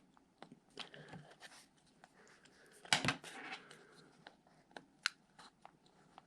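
Screwdriver tips prying and scraping at the snap-in tabs of a plastic push-button switch housing: scattered small clicks and scrapes, with a louder cluster of clicks about three seconds in.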